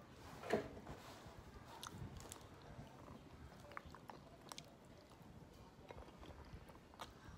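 Close-up chewing of bread soaked in pap (fermented maize porridge), with scattered small mouth clicks and one louder sound about half a second in.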